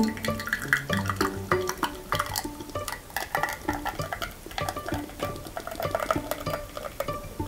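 Background music of short plucked, pizzicato-style string notes with light tapping clicks.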